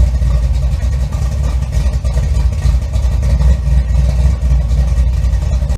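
A vehicle engine running loud and steady with a deep rumble, cutting off abruptly at the end.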